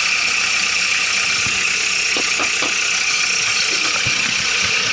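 Ford Ranger's WL-T 2.5 litre turbodiesel idling steadily, heard from underneath the truck, with a few light knocks near the middle.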